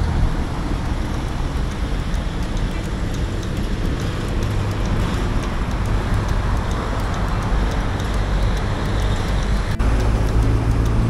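Steady noise of city road traffic, cut off suddenly near the end and replaced by a deeper steady hum.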